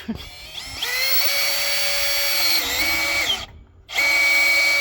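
Electric drill boring a hole into the high-striker's wooden post. It spins up, runs steadily with a slight drop in pitch under load, stops briefly a little over three seconds in, then runs again.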